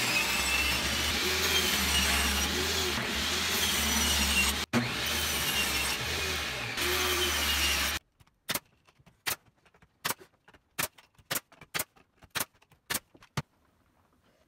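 Table saw running and cutting a sheet of 3/4-inch plywood: a steady loud whine with a brief break about halfway. About eight seconds in it stops abruptly, and a Bostitch 18-gauge brad nailer fires about nine times, one shot every half second or so, driving 2-inch brad nails into the plywood.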